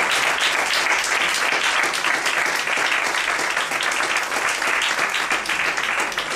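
Audience applauding: many hands clapping in a dense, steady patter at the close of a talk.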